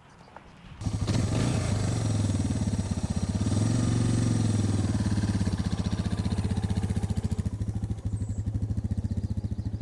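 Suzuki DR650's air-cooled single-cylinder four-stroke engine starting up about a second in, then running at idle with an even, rapid pulse, rising slightly for a moment before settling.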